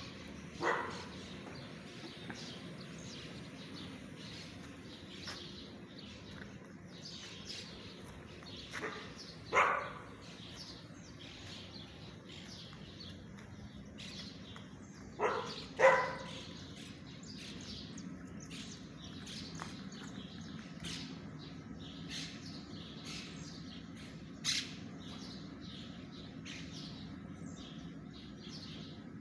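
Small birds chirping all through, with a dog giving a handful of short barks: one about a second in, one near ten seconds, the loudest pair around sixteen seconds, and one more near twenty-five seconds.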